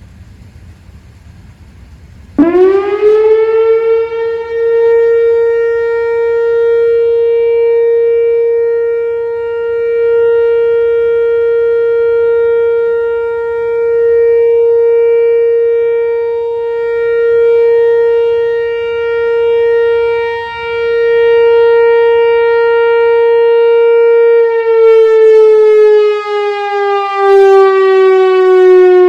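Whelen WPS-4004 electronic outdoor warning siren, driven by an analog ESC-864 controller, sounding its low-pitched steady alert tone of about 480 Hz. It starts about two seconds in, climbs quickly to pitch, and holds steady for about twenty seconds, swelling and fading slightly in loudness. Near the end it starts to wind down in pitch as the alert cycle ends.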